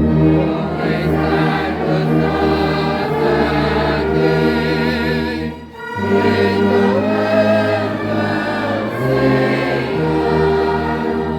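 A hymn sung by a choir or congregation with instrumental accompaniment, a tuba holding sustained low bass notes beneath the voices. The music pauses briefly between phrases about six seconds in, then carries on.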